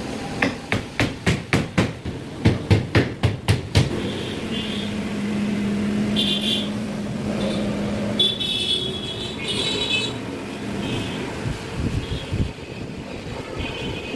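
A rapid run of about a dozen sharp knocks, about three a second, then ends. Steady workshop machine noise follows, with a held low hum and on-and-off higher whining.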